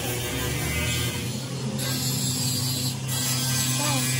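Workshop machinery running with a steady low hum.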